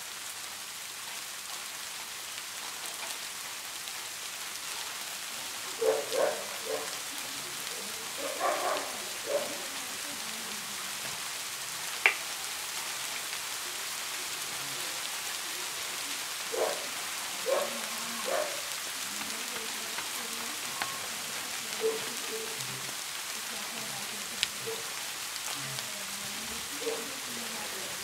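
Steady rain falling, a constant even hiss, broken a few times by short faint sounds and a sharp click about twelve seconds in.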